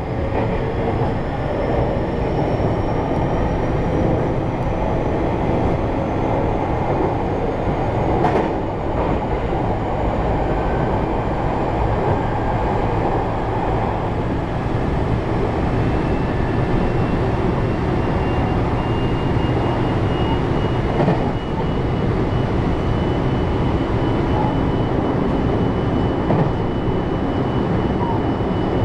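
JR 223-series electric train running along the line, heard from the driver's cab: a steady rumble of wheels on rail, with a faint high whine slowly rising in pitch and a couple of short knocks from the track.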